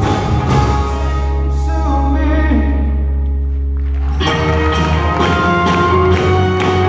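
Live band with guitars, keyboards, strings and drums playing a song with a singer, heard from within the audience. About a second and a half in, the sound thins to a held low bass note under the voice. Just after four seconds in, the full band comes back in with a steady drum beat.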